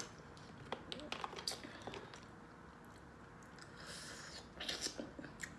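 Faint eating sounds from a seafood boil: small clicks and taps as food is picked out of the pan, then chewing and mouth noises about four seconds in.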